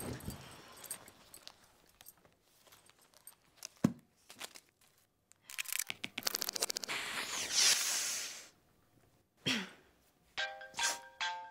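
Handling sounds of a book and paper: scattered small clicks, a sharp knock about four seconds in, then a couple of seconds of loud paper rustling. Near the end a mobile phone starts ringing with a ringtone melody of short repeated notes.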